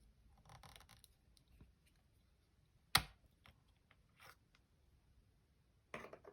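Small hard clicks and light rustling from handling laptop parts: one sharp click about three seconds in, a few fainter ticks after it, and a short scraping click near the end.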